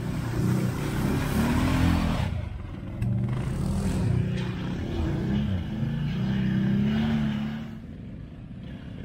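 Quad bike (ATV) engine revving up and down over and over as it is worked through an off-road trial section, its pitch rising and falling; it drops away and goes quieter about eight seconds in.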